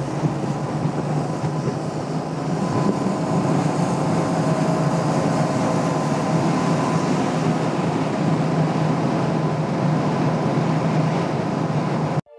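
Royal Enfield Classic 350's single-cylinder engine running steadily at highway speed, under a constant rush of wind and road noise while it overtakes a tanker truck on a wet road.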